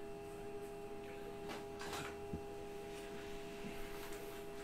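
Printer running with a steady hum while it prints, with a few faint soft ticks.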